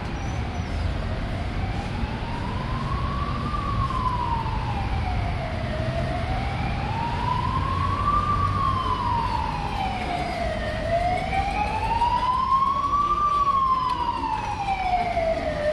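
Emergency vehicle siren in a slow wail, its pitch rising and falling about every five seconds and getting somewhat louder about halfway through, over the low rumble of city traffic.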